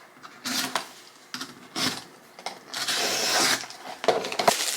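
A gift box and its packaging being handled and opened by hand: short scrapes and rubs, a longer scraping rustle about three seconds in, and a few sharp clicks near the end.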